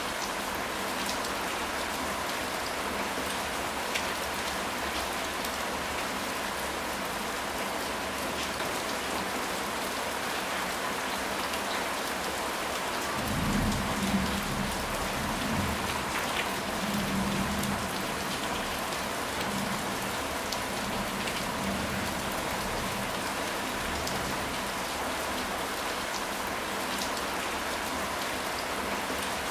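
Steady rain falling, with a low rumble of thunder that rises about a third of the way in and fades over several seconds.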